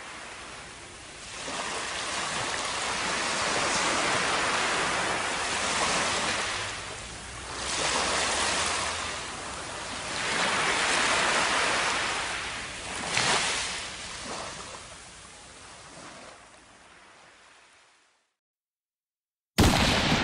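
Gentle surf washing up a sandy beach, swelling and drawing back several times before fading out. Just before the end a sudden loud hit begins.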